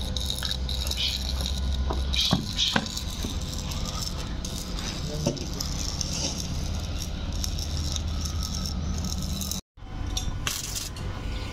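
Work on a steel-pipe frame with a small electric welder: a steady low hum and crackling noise, with two sharp metal knocks about two and a half seconds in. The sound drops out briefly near the end.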